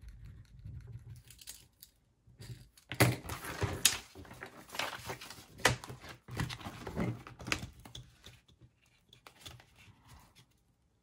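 Paper dollar bills and a clear plastic binder envelope being handled on a desk: rustling and crinkling, with several sharp clicks and taps. A pen writes on paper at first.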